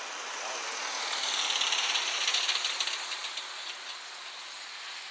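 A Volkswagen Transporter van passing close by and driving away: a hiss of tyres on the road that swells to its loudest about two seconds in, with a quick patter of small ticks, then fades.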